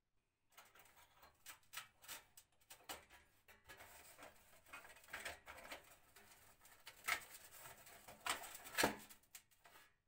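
Fingers working the wiring and terminal on the heating element inside an old sheet-metal electric heater: irregular small metallic clicks, taps and scrapes, the sharpest near the end.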